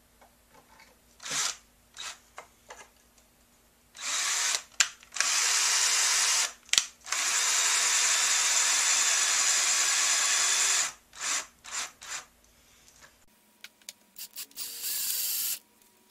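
Cordless drill driving screws through a wooden daggerboard handle: a few short trigger blips, then the drill runs steadily for several seconds with two brief stops, followed by more short blips and one more short run near the end.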